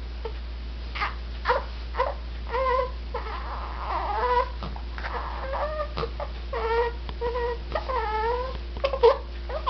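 A pet animal making a string of short, whining, wavering cries, about a dozen in a row. Some cries bend up and down in pitch, and the loudest comes near the end. A steady low hum runs underneath.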